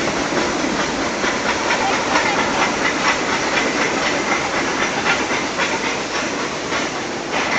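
Nilgiri Mountain Railway steam locomotive letting off steam: a loud, steady hiss with scattered faint clicks.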